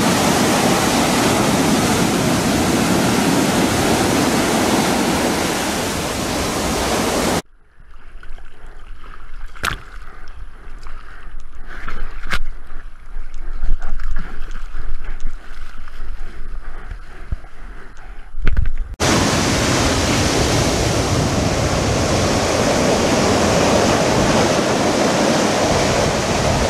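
Steady roar of breaking surf. About seven seconds in it gives way to about eleven seconds of quieter, uneven water sloshing and splashing picked up by a camera on the surfboard's deck at water level, with a few sharp clicks and a faint high whine, before the surf roar returns.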